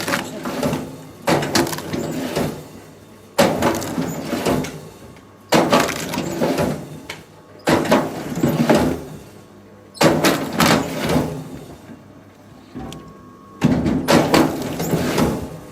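Wood cracking and clattering in a run of heavy impacts, one roughly every two seconds, each sharp crack dying away over about a second.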